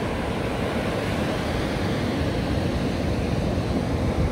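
Ocean surf breaking on a sandy beach, a steady rush of waves, with wind buffeting the microphone.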